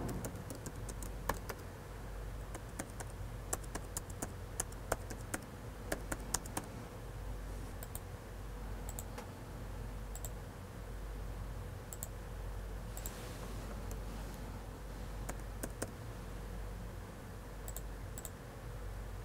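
Faint typing on a laptop keyboard: quick scattered key taps for the first several seconds, then fewer, sparser clicks, over a steady low room hum.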